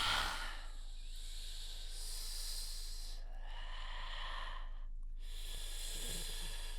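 A person imitating ocean waves with their voice: long breathy hissing swells that rise and fall like surf, breaking off briefly a little after three seconds and again at about five seconds.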